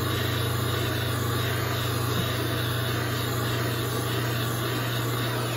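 Handheld gas torch with a fan-shaped flame-spreader tip, burning with a steady rushing hiss of gas and flame.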